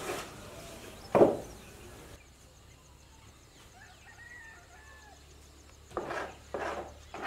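Hens clucking: one loud cluck about a second in and a quick run of clucks near the end, with faint bird chirps in between.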